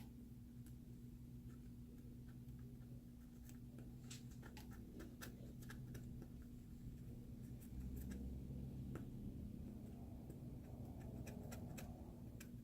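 Faint scraping and irregular light clicks of a flat screwdriver picking old adhesive off a smartphone's frame, over a low steady hum.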